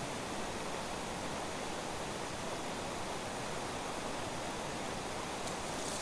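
River water rushing steadily over rocky riffles.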